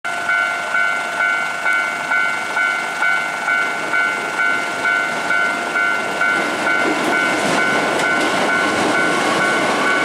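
Japanese railway level-crossing warning bell ringing in even two-tone strokes about twice a second. A Hankyu 7300-series electric train approaches, and its rumble on the rails grows from about seven seconds in. Both cut off abruptly at the end.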